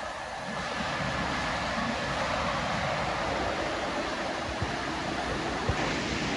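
Steady rushing noise of Muni Metro light-rail trains in an underground station, from one car standing at the platform and another approaching through the tunnel. A faint high whine runs through the first two seconds, and two sharp clicks come near the end.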